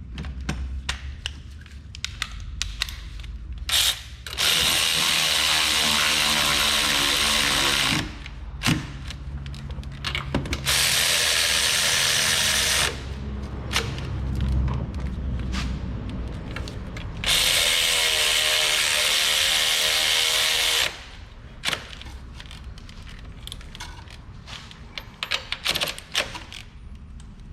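Cordless power tool driving the bolts of a new engine mount tight, in three runs of a few seconds each with the motor pitch shifting as it loads up. Small clicks and knocks of tool handling come between the runs.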